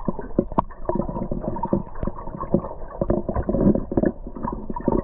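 Underwater sound picked up by a camera in a waterproof housing: a muffled low rumble crowded with irregular clicks and knocks.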